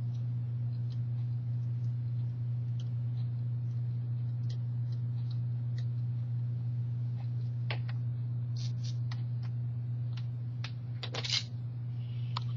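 Small clicks and taps of hands handling wires and the metal clips of a helping-hands stand, with a short cluster of clicks near the end, over a steady low hum.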